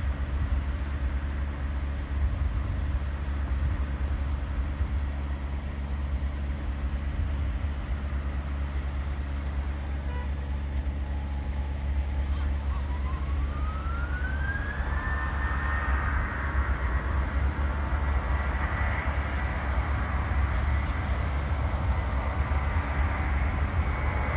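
Boeing 737-800's CFM56-7B jet engines spooling up to takeoff thrust. A distant whine rises in pitch about twelve seconds in and then holds high over a steady low rumble, growing louder toward the end as the takeoff roll begins.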